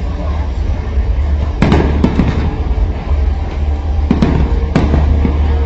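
Aerial firework shells bursting overhead: a quick cluster of three sharp bangs about a second and a half in, then two more about four and five seconds in, over a steady low rumble.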